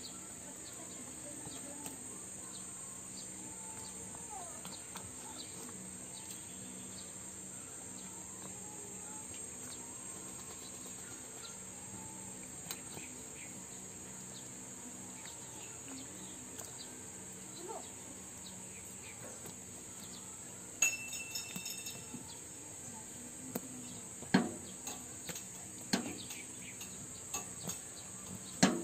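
A steady high-pitched drone of insects in the background, with a few sharp clicks and knocks in the last third.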